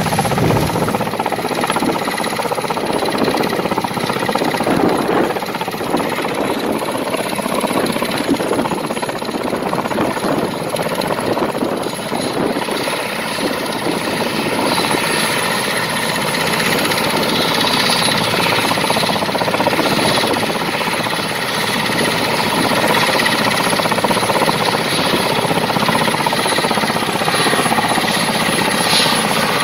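Mil Mi-17 military helicopter's twin turboshaft engines running on the ground with the main and tail rotors turning: a steady, loud rotor and engine noise with a thin high turbine whine on top.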